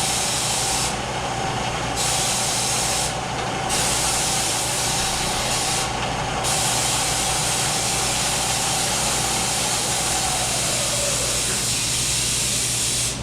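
Bridgeport vertical milling machine running, its 1-1/2 HP spindle drive giving a steady whine over a hiss. About ten seconds in, the whine drops in pitch as the spindle slows.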